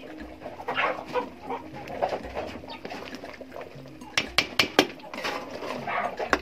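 A long metal spoon knocking and scraping against an aluminium cooking pot while stewing matoke is stirred, with a quick run of sharp clinks in the last two seconds. Chickens cluck in the background.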